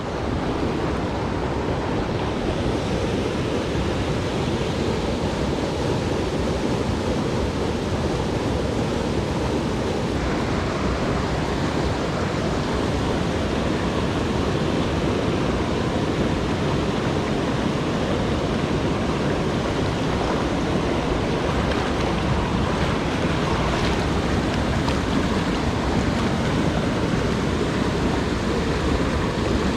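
Steady rushing of a small mountain creek flowing over rocks, an even wash of water noise that does not let up.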